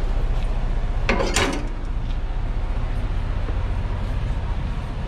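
Diesel engine idling steadily in a low rumble, with a short scraping clatter a little over a second in.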